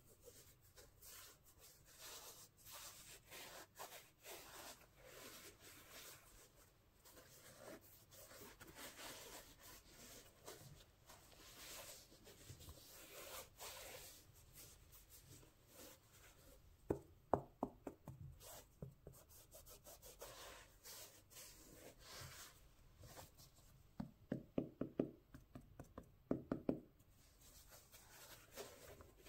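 Cotton-gloved hands handling and rubbing a sneaker's denim upper and rubber sole close to the microphone: soft, scratchy rubbing, broken by two runs of quick sharp taps, a short one a little past halfway and a longer one near the end.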